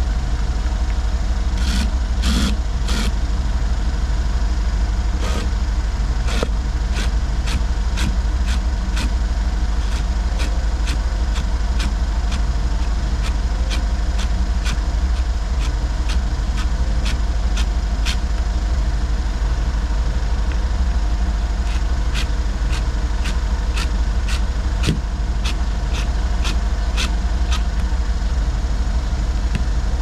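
Mercedes G63's V8 idling steadily. A run of sharp ticks, about two a second, starts a few seconds in and carries on over the idle.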